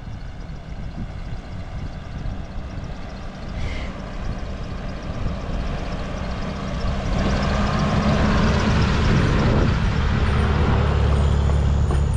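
A vehicle engine running steadily, growing louder about seven seconds in.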